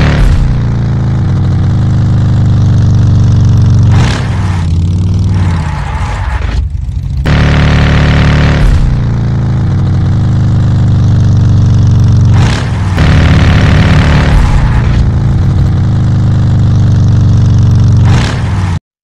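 Motor-vehicle engine sound effect laid over the toy footage. The engine revs, and its pitch falls back to a low, steady rumble. The same pattern repeats about every four seconds, and the sound cuts off abruptly shortly before the end.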